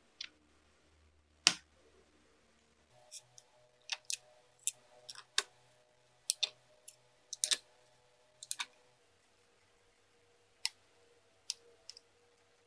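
Irregular light clicks and taps of a 3D-printed plastic light housing and small M3 screws being handled and fitted, with one sharper click about a second and a half in.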